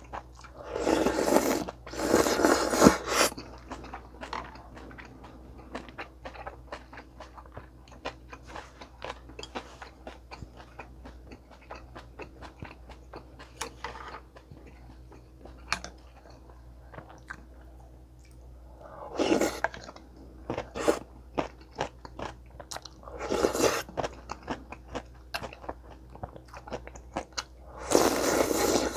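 Close-miked chewing and crunching of a Korean meal, with the crunch of kkakdugi (cubed radish kimchi) being bitten and chewed. Steady small mouth clicks are broken by a few louder, longer bites near the start, twice later on and again at the end.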